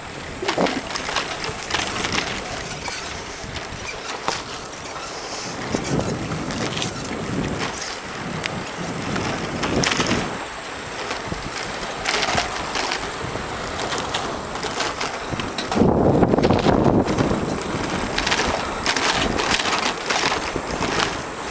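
Bicycle riding over rough, cracked asphalt, with wind noise on the microphone, tyres rolling and frequent small clicks and rattles from the bike over bumps. A louder rush of wind-like rumble lasts a second or two about three quarters of the way through.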